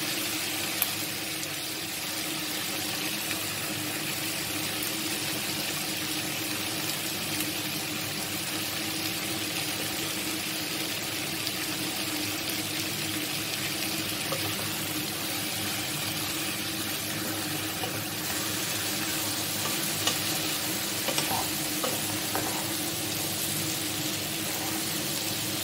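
Green beans and sliced potatoes sizzling in oil in a kadhai, a steady frying hiss. Near the end a wooden spatula stirs them, giving a few sharp knocks against the pan.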